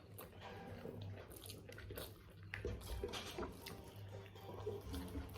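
Quiet eating sounds from biryani: chewing and mouth smacks with scattered small clicks, over a steady low hum.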